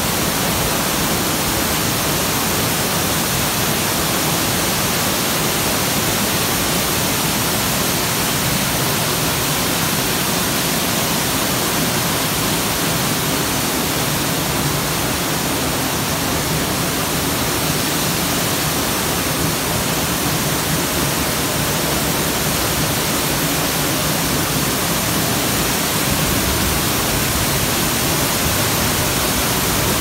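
Dry Falls, a large waterfall, rushing steadily as a dense, unbroken wash of water noise, heard from close by on the walkway behind the falling curtain of water.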